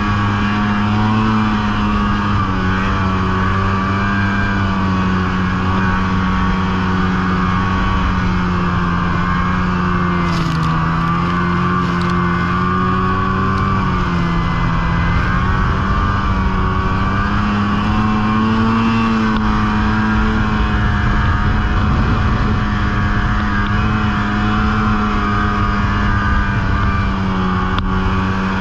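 Polaris snowmobile engine running steadily under way, its pitch wavering slightly up and down with the throttle, over a constant rushing noise.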